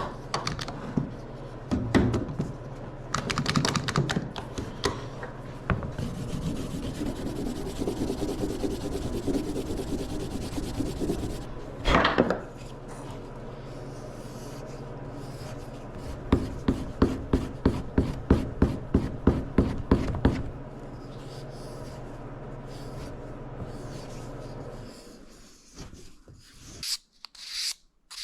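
Wood being carved by hand with a shop-forged gouge: rasping, scraping cuts, with a quick run of strokes about three a second partway through. A steady low hum runs under it and stops near the end.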